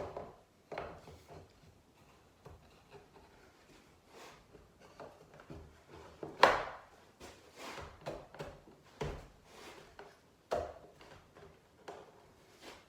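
Wooden pieces being slid and knocked into place between the wooden chops of a saw vise: irregular scrapes and knocks, the sharpest about six and a half seconds in.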